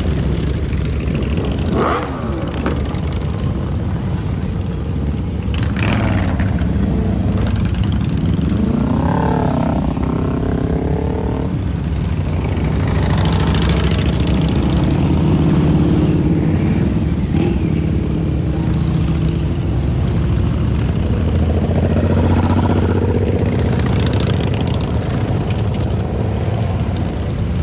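A group of motorcycle engines running together, with bikes revving up and pulling away; the pitch climbs and falls a couple of times as individual bikes rev.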